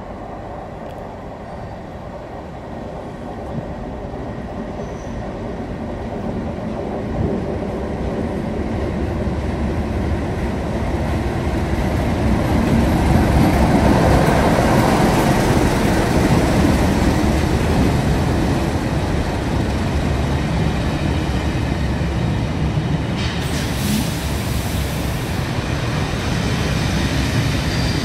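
Diesel-hauled test train, a Colas Rail Freight locomotive leading an overhead line inspection coach, passing slowly through the platform. The locomotive's engine and the rumble of wheels on rail grow louder to a peak about halfway, then carry on steadily, with a brief burst of high hiss about 24 seconds in and a thin high wheel squeal near the end.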